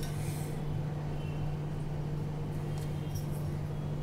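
A steady low hum, with faint soft handling noises from hands sealing and pressing a ball of stuffed dough.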